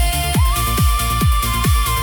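Electronic trance-style music: a deep kick drum falling in pitch on every beat, a little over two beats a second, over a sustained synth bed, with a single high note that slides up about half a second in and holds.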